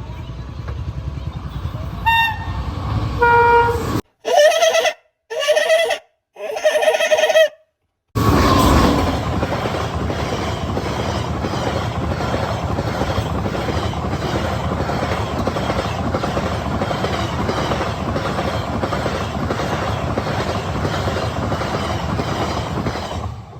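Indian express train's locomotive horn: two short notes about two and three seconds in, then three loud blasts, each cut off abruptly. From about eight seconds the train passes at speed, a steady loud rumble of wheels clattering over the rails.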